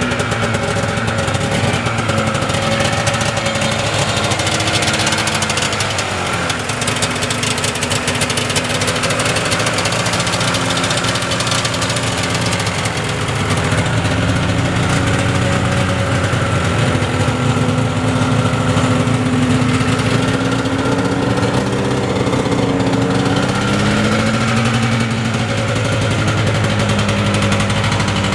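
Yamaha Phazer II snowmobile's two-stroke twin engine running at idle, its pitch wandering slightly up and down.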